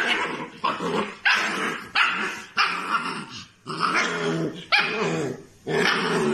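Husky puppy barking and growling in a run of about eight short calls, one after another with brief gaps.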